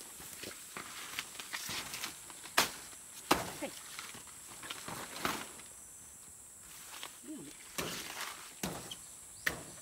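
Footsteps through jungle undergrowth, with leaves and twigs rustling and crackling in irregular short bursts and a few sharp snaps, over a steady high insect buzz.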